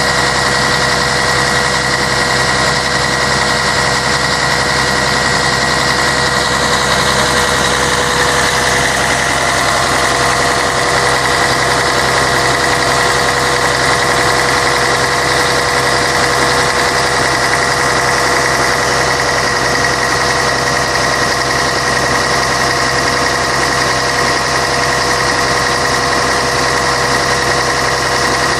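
Scania K113 bus's 11-litre six-cylinder diesel engine running steadily, with a steady whine over it that rises slightly in pitch about eight seconds in.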